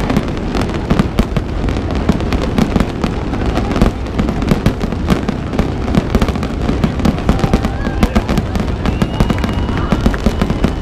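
Aerial fireworks going off in a dense barrage: many sharp bangs and crackles a second. Faint whistles come in during the second half.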